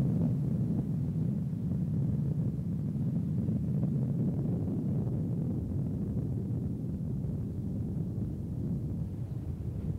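Steady low rumble of a car driving along, engine and road noise heard from inside the car.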